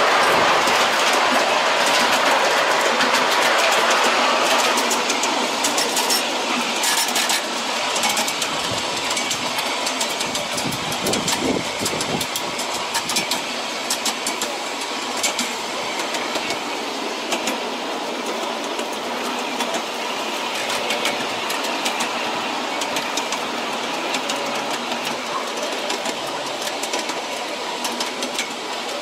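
Ride-on miniature railway cars rolling along the track, the small steel wheels clicking and clattering over the rail joints in a steady run. It is louder for the first four seconds or so, while the cars are on a steel-mesh trestle, then settles a little quieter on ground-level track.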